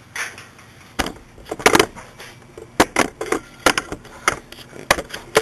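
Handling noise at a metal fluorescent light fixture: about a dozen sharp, irregular clicks and clanks starting about a second in, as tools, wires and the fixture are handled.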